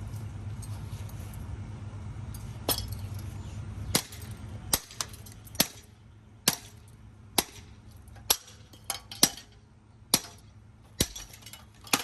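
Sharp metallic clanks, about one a second, as a ceiling fan's motor housing is struck repeatedly to break it apart. A steady low rumble runs under the first few seconds, then stops.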